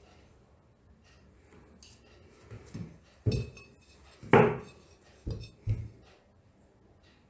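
A ceramic plate and a metal fork knocking and clinking as the plate is picked up off the table and handled: about five short knocks, the loudest just over four seconds in.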